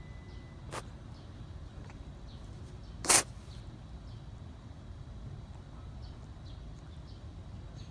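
An orange tabby cat sneezing once, a sharp short burst about three seconds in, with a fainter short puff nearly a second in. It is the sneezing of a cat with a cold, which the owner wonders may be feline herpesvirus.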